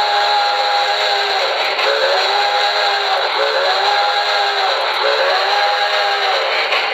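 Recorded steam-locomotive whistle from a QSI Maxx Traxx model-train sound unit, a chord of several notes: a long blast ending about a second and a half in, then three shorter blasts, each sliding up in pitch as it starts. A steady hiss runs underneath.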